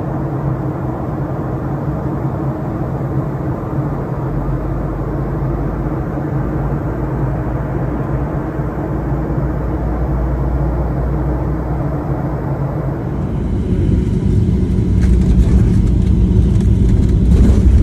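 Airliner cabin noise: a steady engine drone with a low hum. About thirteen seconds in it turns louder and deeper, the rumble of the landing roll-out on the runway, then cuts off suddenly.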